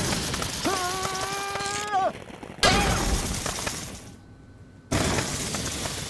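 Cartoon explosion sound effects as a microwave bursts and sprays popcorn. A sustained blast runs under a character's drawn-out cry, then two more sudden bursts come about halfway through and near the end, each dying away over about a second.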